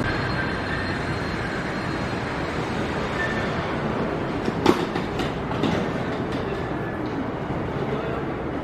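Okinawa Yui Rail monorail train pulling into the station and slowing to a stop beside the platform doors. Its steady running noise is broken by a sharp clack about halfway through and a few lighter clicks after it.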